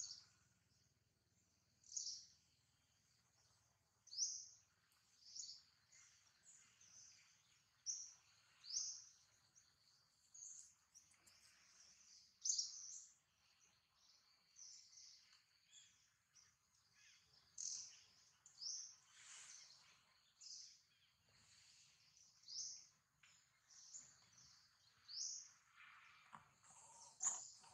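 Small birds chirping: short high chirps repeating about once a second over a quiet background.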